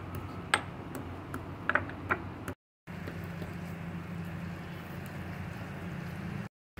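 A few sharp clicks and knocks of kitchen utensils being handled over a steady low hum, then after a brief dropout only a steady low hum and hiss.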